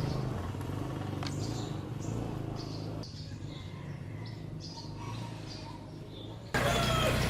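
Birds chirping over a steady low mechanical hum. The sound changes abruptly twice, about three seconds in and near the end, where it gets louder.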